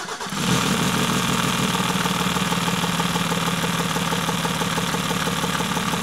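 Mercedes OM603 three-litre inline-six diesel just started and idling steadily. It is running on undiluted injector cleaner drawn from a bottle in place of diesel fuel, purging the injectors. It comes up to speed within the first half second.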